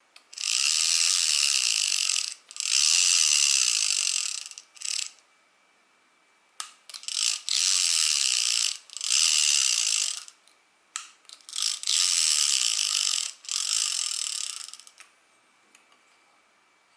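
Daiwa spinning reel being cranked, its mechanism giving a fast ratcheting click-buzz in repeated spurts of one to two seconds, with a quiet pause of about two seconds around a third of the way in.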